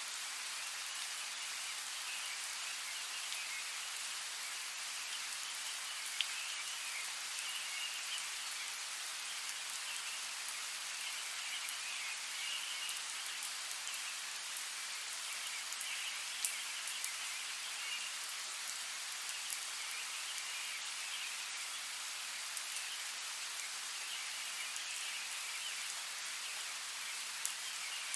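Steady rain, an even hiss with scattered sharp drop ticks. A high chirring swells and fades every couple of seconds behind it.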